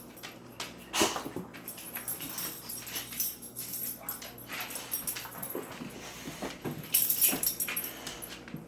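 An American bulldog making a series of short, irregular whimpering noises, the loudest about a second in and again near the end.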